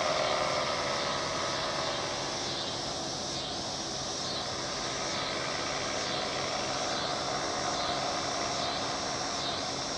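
A distant paramotor's engine and propeller droning steadily as it flies past, easing a little over the first couple of seconds and then holding level. A high pulsing sound repeats a little faster than once a second over the drone.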